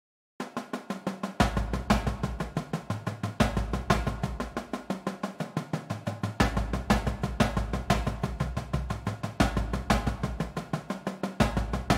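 Marching drumline parts (snare drums, tenor drums and bass drums) played back from the score of a drumline warmup in 12/8. Drums start about half a second in with a steady stream of quick strokes and regular accents, and low bass-drum notes recur throughout.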